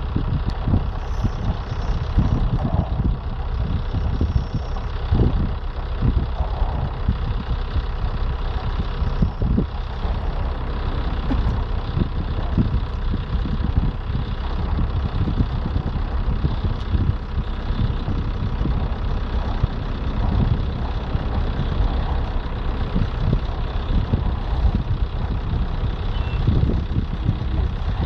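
Nuclear icebreaker Taymyr pushing through sea ice: a steady low rumble with irregular low thumps and a faint machinery hum.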